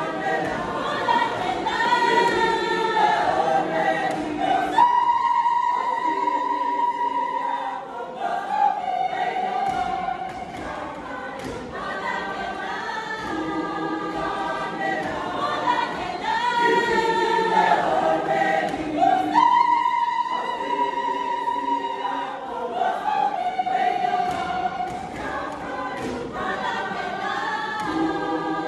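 Mixed church choir of women's and men's voices singing together. The phrase repeats twice, each time rising to a long held high note.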